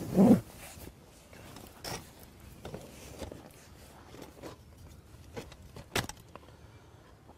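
Handling noise from a folded Fox Flatliter bedchair as it is lifted and stood on end: fabric rustling and light knocks from the metal frame. A louder thump comes at the very start, and a single sharp click about six seconds in.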